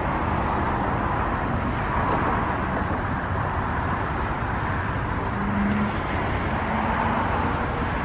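Steady outdoor background noise: a continuous low rumble and hiss with no distinct events, apart from a faint high tick about two seconds in.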